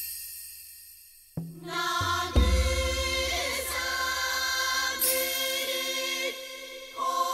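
Soundtrack choral music: a choir in Japanese folk style sings sustained, wavering chords over deep drum strokes. At the start a single struck sound rings out and fades before the voices come in, about a second and a half in. The drums begin about two seconds in.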